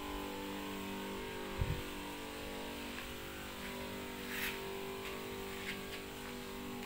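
Motorized backpack sprayer's pump running with a steady hum as disinfectant is sprayed. There is a dull thump about one and a half seconds in and a brief hiss a little past the middle.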